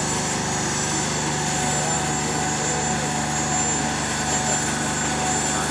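Farm tractor engine running steadily at a constant pitch, with no change in speed.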